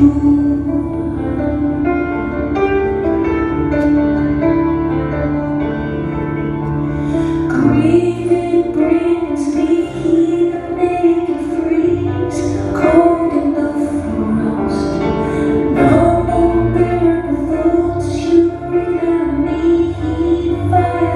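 A woman singing live while accompanying herself on a grand piano, her voice carrying the melody over sustained piano chords.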